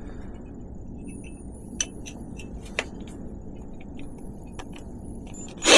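Drill working a hole into a bicycle frame's down tube: a faint high whine with scattered sharp clicks, then a sudden loud burst of noise near the end.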